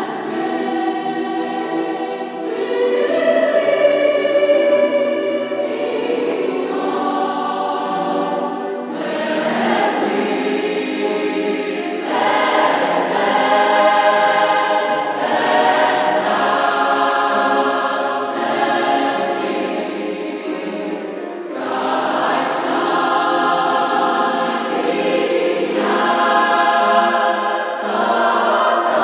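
Mixed choir of men's and women's voices singing sacred music in sustained chords that change every few seconds, rising and falling in loudness.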